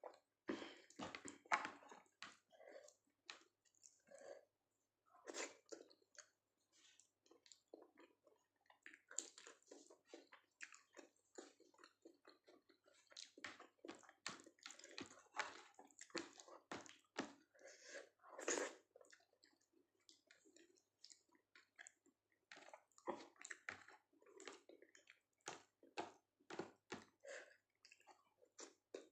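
Close-miked chewing of soft, wet food (dal rice with Maggi noodles): irregular wet smacks and squelches, loudest about 18 seconds in.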